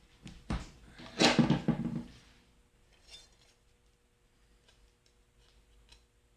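Thin aluminium sheet clattering as a freshly cut piece is taken off and handled. There is a knock about half a second in, a louder rattling clatter a little over a second in, then a few faint taps.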